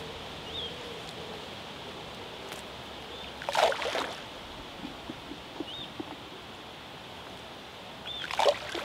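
Free bait thrown from a baiting spoon splashing into the lake close in, twice: about three and a half seconds in and again near the end.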